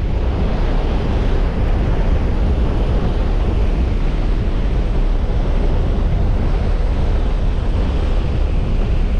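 Steady rush of wind and engine drone through the open door of a skydiving jump plane in flight, with wind buffeting the microphone.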